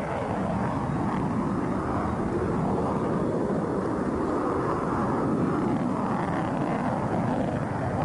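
Fighter jet in flight: the steady, dense rushing noise of its jet engines.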